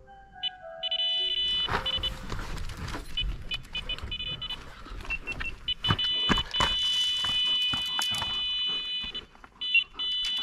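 Electronic carp bite alarm sounding: a high steady beeping tone in stuttering bursts that holds unbroken for a few seconds in the middle, the sign of a run with a fish taking line. Clicks and scuffs of movement sound through it.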